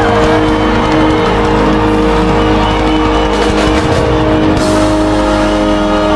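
Loud live praise band music: a long held chord over a dense wash of drums, with cymbal crashes in the middle.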